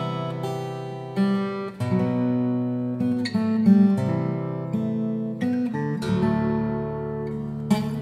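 Acoustic guitar music: chords plucked and strummed, each new chord struck every second or so and left to ring.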